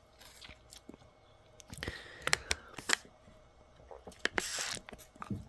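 Faint handling of a foil Capri Sun juice pouch: scattered light clicks and crinkles, with short rustling bursts about two seconds in and about four and a half seconds in.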